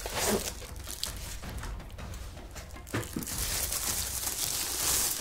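Clear plastic wrapping rustling and crinkling as a wooden display plaque is slid out of its particle-board packing and unwrapped, with one light knock about three seconds in. The crinkling grows louder over the last two seconds.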